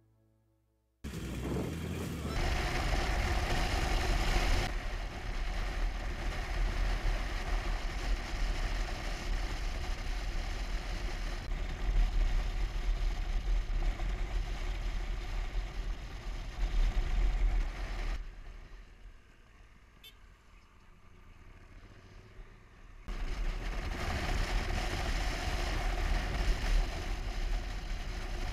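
Motorcycle riding noise from a camera mounted on the bike: steady rushing wind with engine and tyre noise underneath. It starts about a second in, drops much quieter for a few seconds past the middle, then comes back at the same level.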